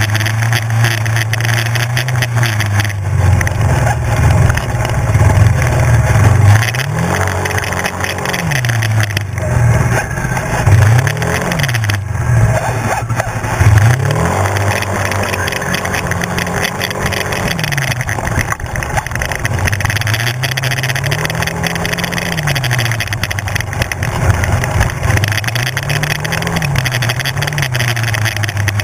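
Engine of a Kymco 250 sport quad riding a dirt forest track, its revs rising and falling again and again as the throttle is worked, over a steady rushing noise of wind and rough ground.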